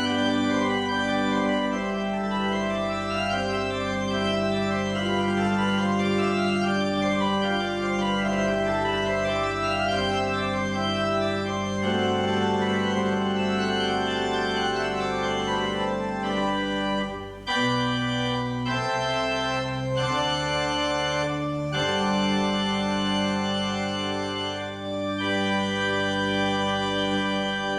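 Organ playing slow, sustained chords as worship music, with a brief break about seventeen seconds in before the chords resume.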